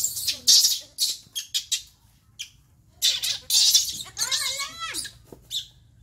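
Young macaque monkeys play-fighting in a tree: bursts of rustling and scuffling, then a squealing call that rises and falls in pitch about four seconds in.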